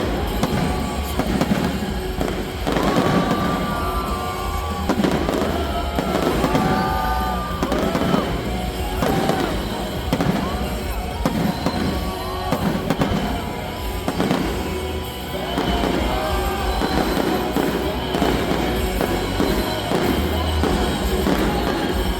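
Fireworks going off in quick succession, a dense run of bangs and crackles, with music playing.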